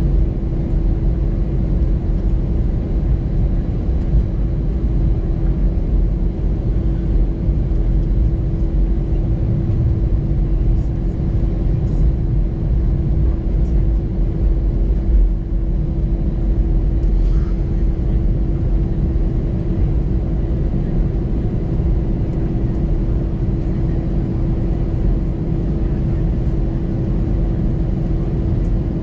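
Cabin noise of an Airbus A320-200 taxiing after landing: a steady low rumble with a constant hum, the engines still running at idle.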